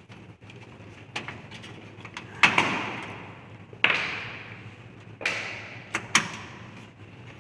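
Sharp knocks and clatters of desktop computer parts being handled and set down as the system unit is taken apart. There are about six hard strikes, several of them with a short ringing tail.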